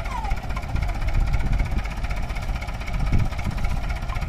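Tractor diesel engines idling with a steady, throbbing low rumble.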